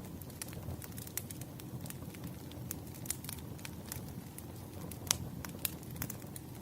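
Wood fire crackling: irregular sharp pops and snaps over a steady low rumble of burning logs, with one louder pop about five seconds in.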